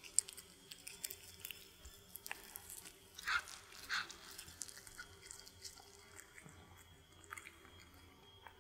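Cats chewing sausage baked in dough: soft wet smacks and clicks of mouth and teeth, with two louder chews a little over three and four seconds in.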